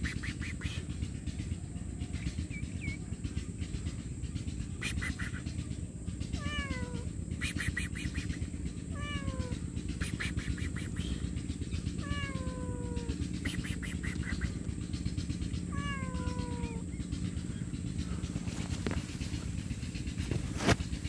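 A stray cat meowing several times, a few seconds apart: drawn-out meows that each fall in pitch. A sharp knock comes near the end.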